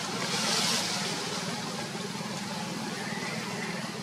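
Steady low hum with a hiss over it, a little louder in the first second.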